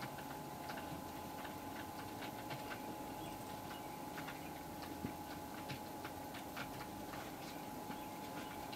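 Faint irregular crackling ticks, a few a second, from a saltine cracker soaking in soup as it softens and cracks apart, over a thin steady faint whine.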